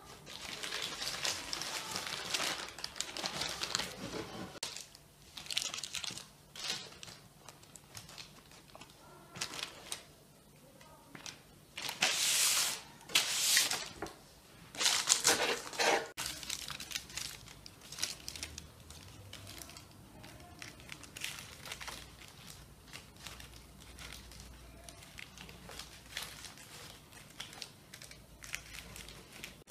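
Crinkling and rustling of wrapping being handled, in irregular bursts, the loudest and longest about twelve and fifteen seconds in.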